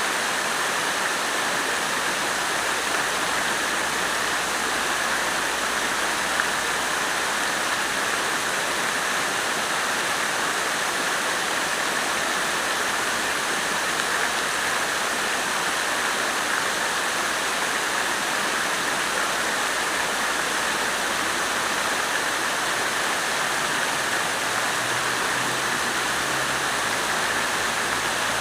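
Water fountain splashing in a steady, unbroken rush of falling water.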